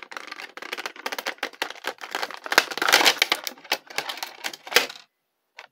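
Clear plastic blister packaging crinkling and crackling in rapid, irregular clicks as an action figure is worked out of it, loudest about halfway through, then cutting off abruptly about five seconds in.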